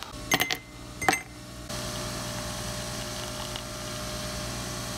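Two sharp clicks, then a Nespresso Vertuo coffee machine starts brewing a double espresso about two seconds in, running with a steady whirring hum.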